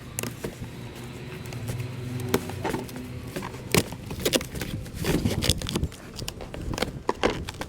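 Irregular clicks, knocks and rustles of a chicken feeder's box and packaging being handled during unboxing.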